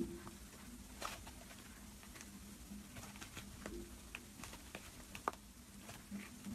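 Slime being kneaded and stretched by hand, giving scattered small pops and clicks, with one sharper pop about five seconds in.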